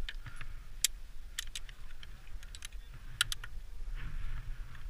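Steel via ferrata lanyard carabiners clicking and clinking against the safety cable and rungs as they are handled and clipped, sharp metallic clicks in small clusters of two or three, with a soft rustle of handling near the end.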